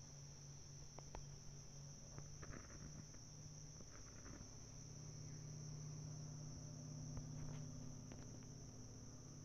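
Faint, steady high-pitched trilling of insects in a forest, with a low steady hum beneath and a few soft rustles and clicks.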